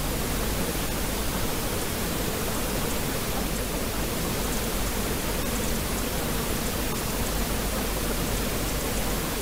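Steady pink noise: a constant, even hiss with a low rumble underneath and no changes.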